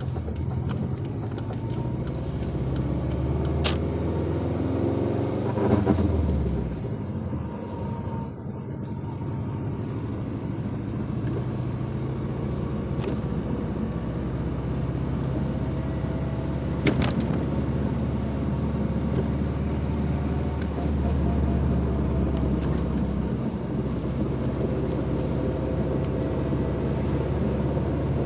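2004 Subaru WRX running, with a steady drone of engine and road noise. Its pitch rises and falls back about five to six seconds in, and two sharp knocks come a few seconds in and about seventeen seconds in: possibly the clunk the owner is asking about.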